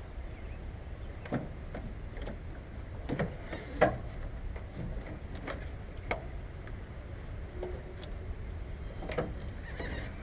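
Scattered knocks and clicks of hands and tools working in a motorhome's house battery compartment, the loudest knock about four seconds in, over a steady low rumble.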